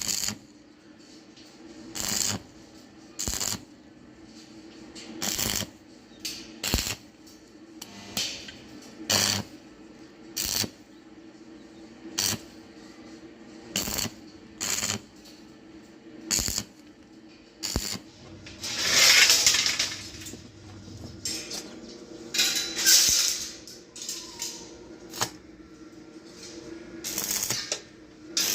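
Short metallic clinks and knocks from iron pieces being worked, one every second or two, with two longer hissing bursts past the middle over a steady low hum.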